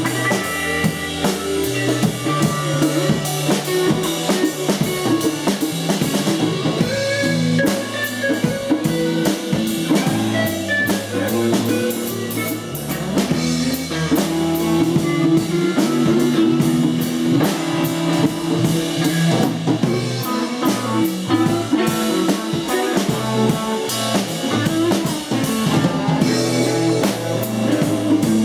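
Rock band playing live: drum kit with kick drum and rimshots keeping a steady beat under bass and electric guitar, without vocals.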